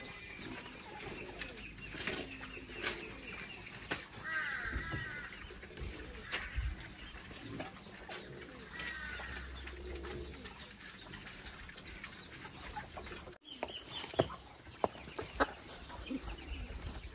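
Chickens clucking and calling, with wing flapping and scattered clicks and knocks.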